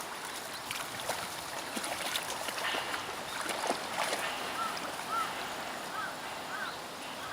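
Outdoor riverbed ambience: a steady rushing noise with scattered scuffs and rustles, as of puppies running on the sand. In the second half a short high call repeats about every half second.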